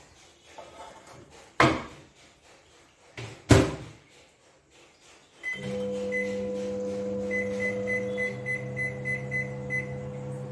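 Samsung combi microwave oven: two knocks as the cake tin goes in and the door is shut, the second the loudest. About halfway in the oven starts running with a steady hum, while its keypad beeps twice and then about nine times in quick succession as the cooking time is set.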